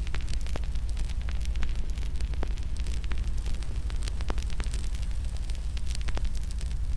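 Wood fire crackling in a fireplace: frequent irregular sharp pops and snaps over a steady low rumble of the burning logs.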